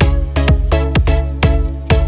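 Electronic dance-style background music with a steady beat, about two beats a second, over a heavy bass line.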